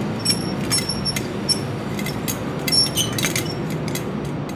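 Metal pot-gripper tongs clinking and tapping against the rim of a stainless-steel idiyappam steaming plate: a string of light metallic clinks with a short ring. Under them is the steady low rumble of water boiling in the idli pot.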